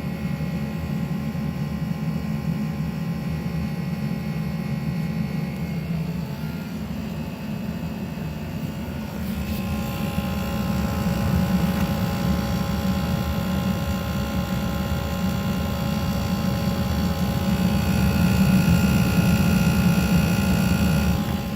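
A.O. Smith hybrid heat pump water heater running with a loud buzz and fan noise: a steady low drone with several steady tones on top that shift a few times. The owner takes the buzz for a fault, since an identical unit making the same noise was diagnosed bad by a technician.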